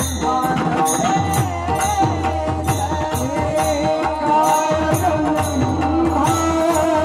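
Devotional kirtan singing: a voice carrying a wavering melody over a steady percussion beat.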